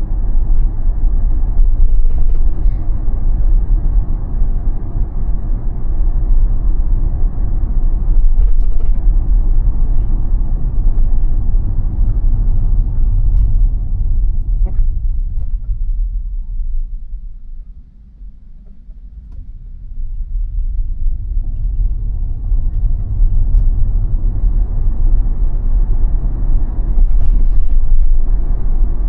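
Tesla electric car's steady low road and tyre rumble while driving. It dies away to its quietest about two-thirds of the way through, as when the car slows right down, then builds back up as it gathers speed again.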